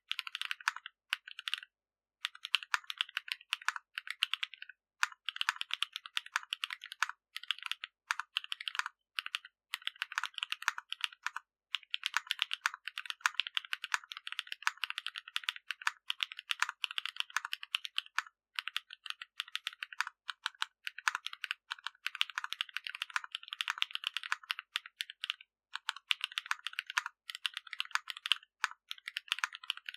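Zoom75 gasket-mounted mechanical keyboard with Krytox-lubed HMX Cheese switches, a carbon fibre plate and PBT doubleshot keycaps, being typed on in fast runs of keystrokes with brief pauses between them. The keystrokes are crisp clicks with no deep thud.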